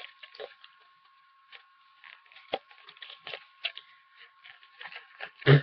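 Scattered small clicks, taps and rustles of small items being handled, with one louder knock near the end. A faint steady high whine runs underneath.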